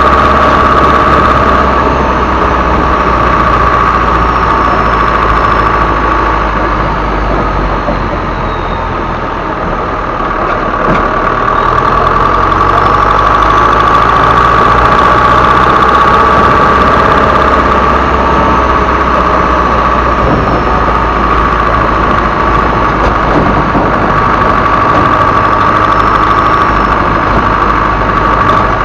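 Isuzu Elf HD truck's turbodiesel engine running with a steady, high turbo whistle over the diesel rumble. The sound eases off about eight to ten seconds in, then comes back up.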